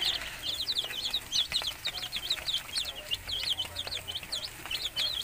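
A brood of young chicks peeping continuously, many short high chirps a few per second, overlapping one another.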